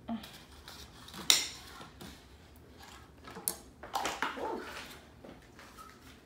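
Dishes and a knife being handled: a sharp clack about a second in, then lighter knocks and rustles against a paper plate and foil pan, with a busier cluster of clatter around four seconds in.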